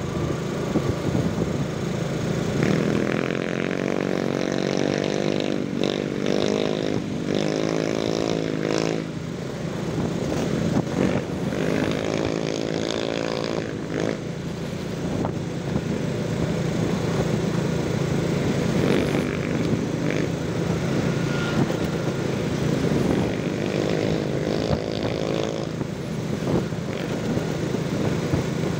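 Motorcycle engine running under way along a street, with wind and road noise; the engine note swells several times, about three seconds in, around twelve seconds and again near the end.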